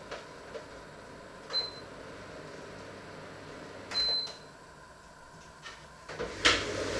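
Two short, high electronic beeps about two and a half seconds apart, the second louder, from a kitchen appliance, with light clicks and knocks of kitchen handling around them. Near the end a sharper click, then a rising rushing noise begins.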